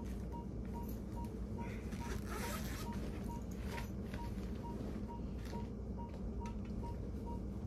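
Steady electronic beeping: short, even high beeps about three a second, with a few faint taps and rustles over a low hum.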